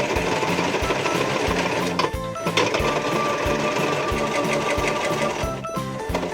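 Toy washing machine running its rinse cycle: a steady electric whirring with its built-in washing sound effects. Background music with a steady beat of about three thumps a second plays underneath.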